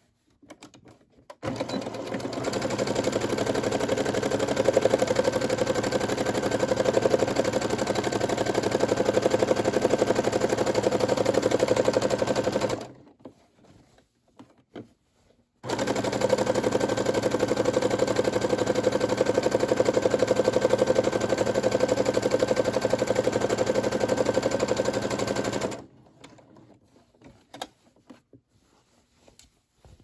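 Computerized sewing machine stitching a seam through two layers of cotton fabric, its needle running in rapid, even strokes. It sews two runs of about ten seconds each: the first starts about a second and a half in, then the machine stops for about three seconds before the second run, which stops a few seconds before the end.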